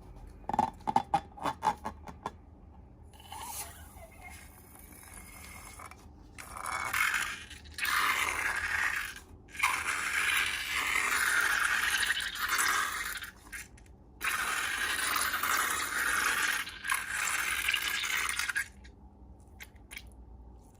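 Slime-making handling sounds: a quick run of clicks for about a second and a half, then several long bursts of scraping, each lasting a few seconds with short breaks between.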